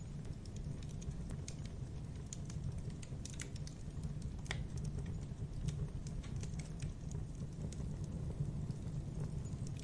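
Logs burning in a fireplace, crackling with quick irregular snaps over a steady low rumble of the fire, with one louder pop about four and a half seconds in.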